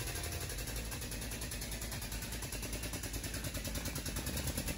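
Hydraulic tube bender's pump running steadily under load while it bends a steel roll-cage tube.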